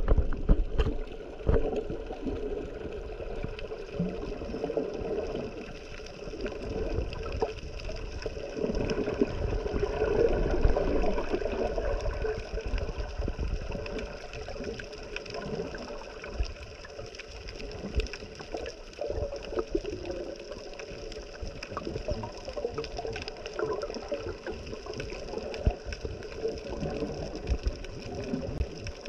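Water sloshing and gurgling, with scattered small clicks and crackles throughout.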